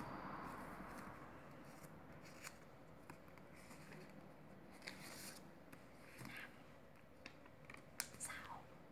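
Faint, irregular crisp flicks and rustles of paper banknotes, New Taiwan dollar 1000 notes, being counted by hand one at a time and laid down onto a pile.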